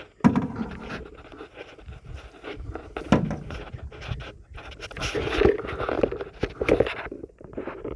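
A canoe being paddled: scattered knocks and scrapes of paddles against the hull, mixed with uneven rushes of water noise that are busiest from about five to seven seconds in.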